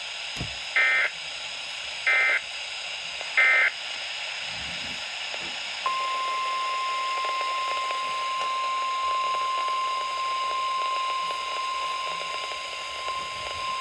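Weatheradio emergency alert signal received on a radio: three short bursts of the digital SAME header about a second and a half apart, then about six seconds in a steady single-pitch warning alarm tone starts and holds, over a constant static hiss. The header and alarm tone mark the start of a new severe weather warning broadcast.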